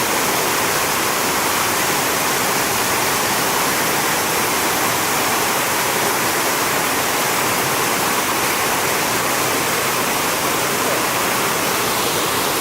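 Dzhur-Dzhur waterfall: a steady, loud rush of falling water that holds even throughout.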